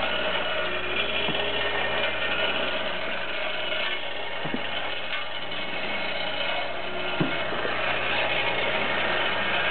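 A hex head bolt stepper feed system running with a steady mechanical whir, and a few short knocks, about three seconds apart.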